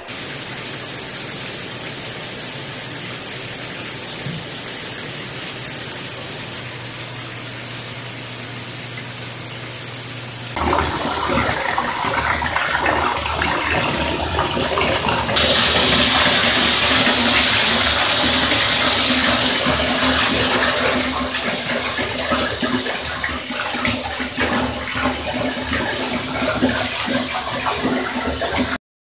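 Shower spray running onto a cat and the bathtub floor, a steady rush of water that gets louder about ten seconds in and again a few seconds later, and breaks off briefly near the end.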